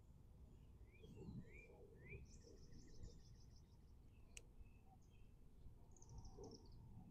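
Faint birdsong: a few short rising chirps, then a rapid high trill, and a shorter trill near the end. A single sharp click sounds about four seconds in.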